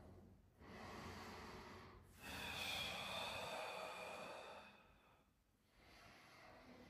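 A man's deep breathing, paced with a yoga cat-cow cycle: a shorter breath about half a second in, then a longer, louder one of about two and a half seconds as he rounds his spine into cat pose.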